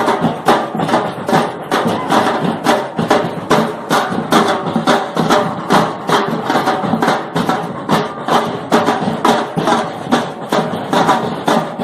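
School percussion group playing drums and percussion in a steady, unbroken rhythm of several strikes a second.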